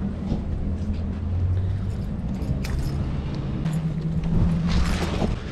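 Boat motor running at low speed as the boat eases up against a wooden dock, a steady low hum, with a few short knocks about halfway through and near the end.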